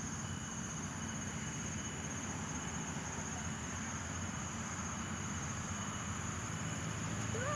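Motorcycle engine running steadily at low throttle, under an even hiss.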